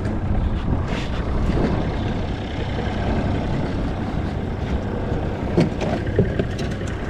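Low steady rumble of a boat's outboard motor idling, mixed with wind buffeting the microphone. A few short knocks around five to six seconds in.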